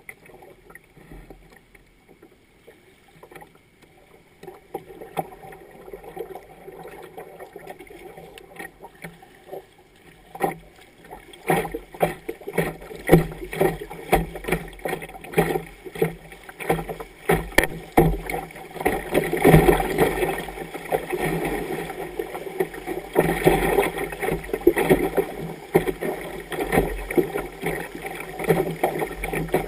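Muddy river water rushing and splashing against a kayak's bow as it runs a riffle. Fairly quiet for about the first ten seconds, then louder and choppier, with many quick splashes, as the boat enters the rough water.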